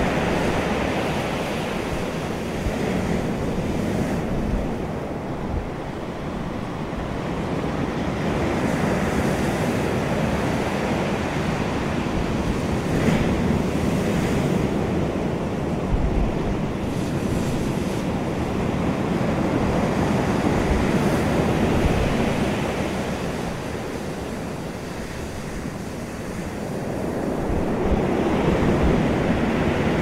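Ocean waves breaking on a pebble beach, a continuous surf wash that swells and eases several times, with a few brief sharper splashes.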